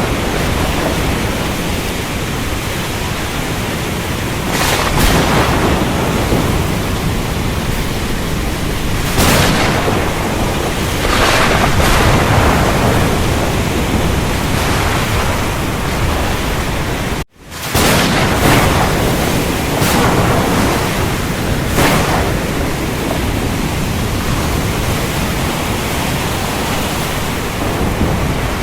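Storm ambience: a steady, dense rush of heavy rain and wind with a deep low rumble, swelling briefly several times. The sound cuts out for an instant about seventeen seconds in.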